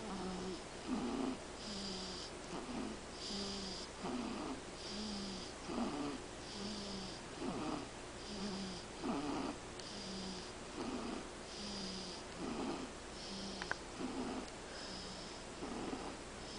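Soft, rhythmic snoring of a sleeping five-week-old, about one breath every second and a half, each breath with a faint rasp.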